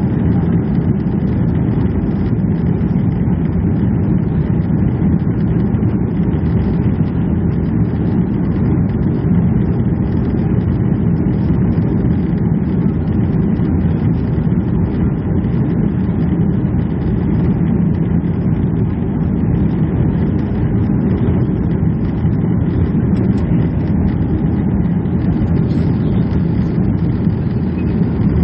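Steady low rumble of a Boeing 737-300's CFM56-3 jet engines and airflow, heard inside the passenger cabin. It does not change throughout.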